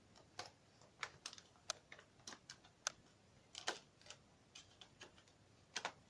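Plastic Blu-ray cases being handled, giving faint, irregular clicks and taps.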